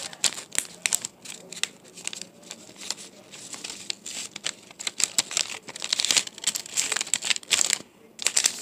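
A sheet of paper being folded and creased close to the microphone: a dense run of irregular crinkles and rustles, with a short lull near the end.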